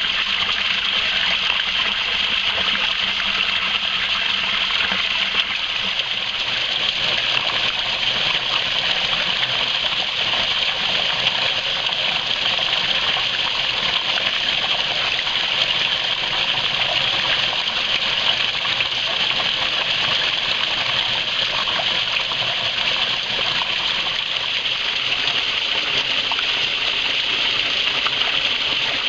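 Creek water rushing and splashing over rocks, a steady even rush.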